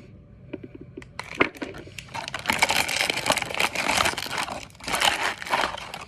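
Crinkly blind-box packaging being handled and crumpled by hand: a few light clicks, then a dense run of crackling from about a second in, easing off near the end.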